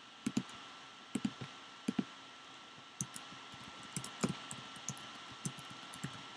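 A few paired clicks, then a run of quick keystrokes typed on a computer keyboard.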